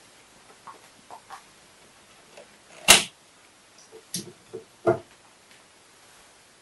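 Sparse, irregular clicks and knocks from a chaotic magnetic pendulum, whose ring-magnet bob is kicked by a relay coil pulsed by a 555 timer in its base. One sharp, loud knock comes about three seconds in, followed by a quick cluster of duller knocks.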